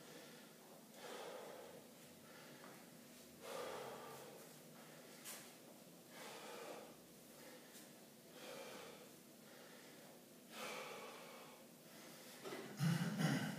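A man breathing hard, catching his breath in the short pause of a rest-pause set, with a deep breath about every two and a half seconds. Near the end comes a louder knock as dumbbells are lifted from the rack.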